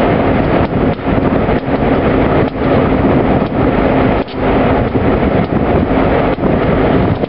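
Norfolk Southern diesel-electric locomotive running close by with a steady engine hum, loud and continuous, with some wind on the microphone.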